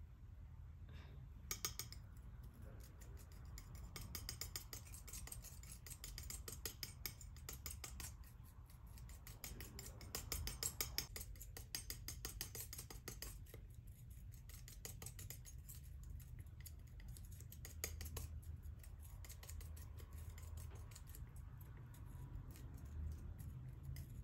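Metal palette knife scraping, pressing and spreading thick wet paint on a flat surface, giving a dense run of faint scratchy clicks that are busiest in the first half and return in patches later. A low steady hum lies under it.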